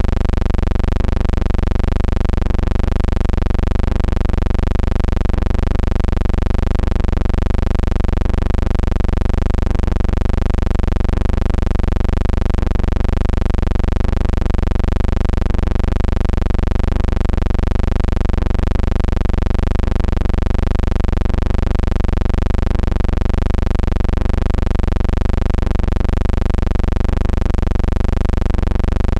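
A steady low hum with many evenly spaced overtones and a slight, regular wobble, unbroken throughout.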